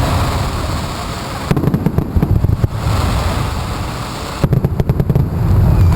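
Fireworks going off, with two bursts of rapid crackling, one about a second and a half in and another near the end, over a steady low rumble.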